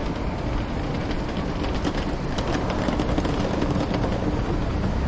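City street traffic: a steady rumble of passing vehicles with an engine hum running through it.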